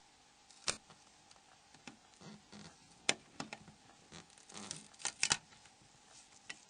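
Sharp little plastic clicks and soft scraping as the Nokia E70's battery deck is worked free from the phone's A cover assembly. The clicks come singly, the loudest about three seconds in and a quick pair about five seconds in.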